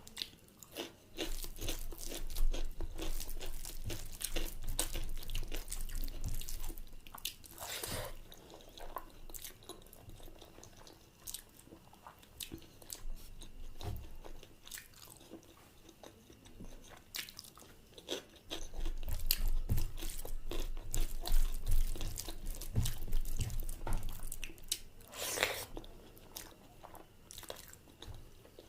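Close-up eating sounds: a person biting and chewing food with many quick wet clicks and smacks, louder in two spells with quieter chewing in between.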